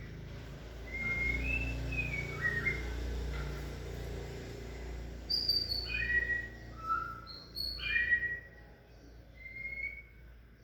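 White-rumped shama singing clear whistled phrases with notes that slide up and down: a short phrase about a second in, then a fuller, busier run of notes from about halfway, with a steady low rumble underneath.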